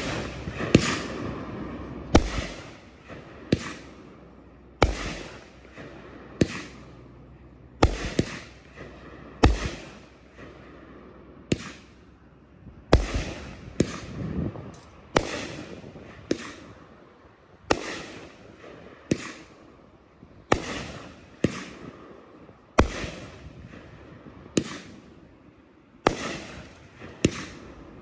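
Happy Family 'Uncle Sam' 500 g firework cake firing shot after shot: a sharp bang about every one to one and a half seconds, a few coming in quick pairs, each trailing off before the next.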